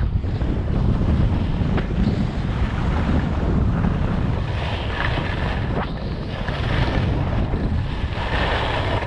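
Wind rushing over the microphone of a skier going downhill, with the hiss and scrape of skis on snow swelling louder about halfway through and again near the end as the skis carve turns.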